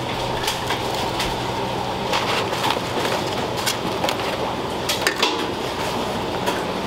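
Irregular light clinks and knocks of kitchen utensils and containers as bento boxes are packed, with two quick knocks close together about five seconds in, over a steady hum of kitchen equipment.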